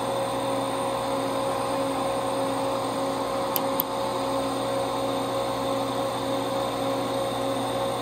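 A DEC RA81 hard disk drive running at full speed, its spinning platters and spindle motor giving a steady whir and hum. Two brief clicks come a little before midway.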